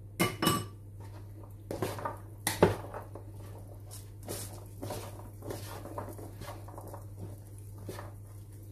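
Wooden spoon stirring and tossing penne pasta salad in a plastic mixing bowl: irregular knocks, scrapes and soft squelches of pasta, loudest a little over two seconds in, then softer strokes every half-second or so. Near the start a couple of sharp clicks with a metallic ring, from the knife. A steady low hum runs underneath.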